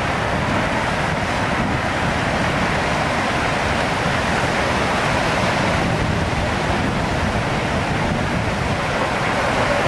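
Steady, loud rush of tsunami floodwater churning over a seawall and through flooded houses, with wind buffeting the microphone.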